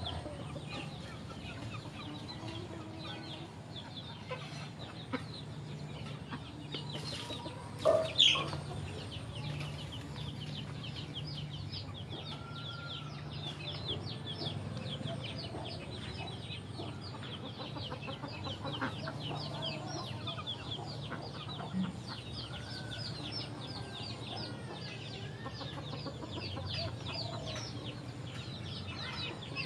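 Backyard chickens calling and clucking, with a dense, continuous chorus of short, high, falling peeps and two loud calls about eight seconds in.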